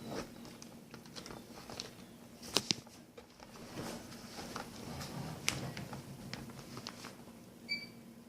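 Scattered light clicks and knocks of handling, over a faint steady hum, with two sharper clicks about two and a half and five and a half seconds in and a brief beep near the end.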